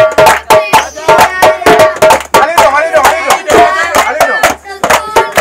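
Children singing together over a quick, steady beat of djembe strokes and hand claps.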